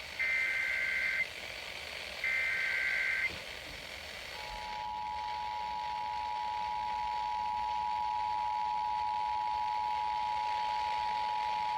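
Emergency Alert System tones over the radio. Two short bursts of screechy SAME data-header tones, each about a second long, are followed about four seconds in by the steady two-tone EAS attention signal, which opens a new emergency alert activation.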